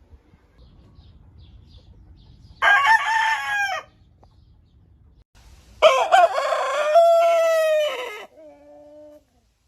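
Rooster crowing twice: a short crow about three seconds in, then a longer, louder crow of about two and a half seconds that falls away at the end.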